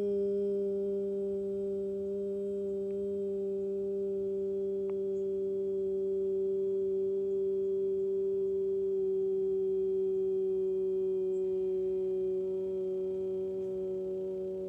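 A person exhaling one long, steady sung 'hu' sound on a single low pitch: the stomach-and-pancreas healing sound of the Taoist six healing sounds practice. It starts abruptly, holds for about fourteen seconds and trails off at the end.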